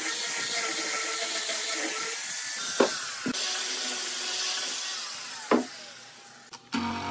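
Angle grinder with an abrasive disc sanding the edge of a wooden slab: a steady motor whine with the hiss of abrasion on wood, broken by a few sharp knocks. The sound fades as the grinder comes off the wood near the end.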